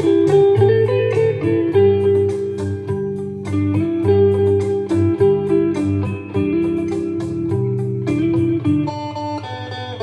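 Background music: plucked guitar, electric guitar and bass, playing a steady rhythm.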